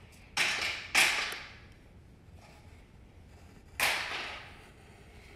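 Pencil scratching on paper as lines are drawn along a ruler: three quick hissy strokes, two close together near the start and a third about three seconds later, each fading off fast.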